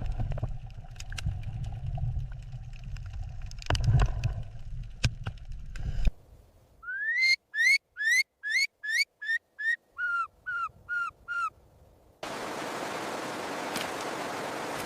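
A bird's whistled call: about a dozen short clear notes in quick succession, the first ones rising and the later ones falling. Before it comes a low rumbling noise with a few clicks, and after it a steady hiss.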